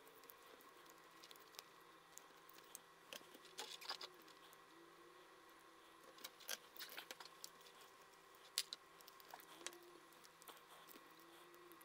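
Faint clicks, taps and rustles of pliers, tweezers and wire being handled on a circuit board, over a quiet steady hum. The taps come in small clusters, with one sharper click past the middle.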